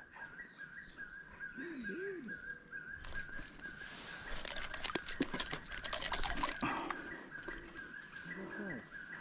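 A high animal call at one steady pitch, pulsing about three times a second without a break, with clicks, scrapes and rustling from handling in the middle.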